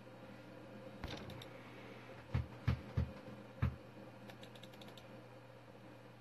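Scattered computer keyboard and mouse clicks over a steady low hum, with four low thumps in quick succession between about two and a half and four seconds in.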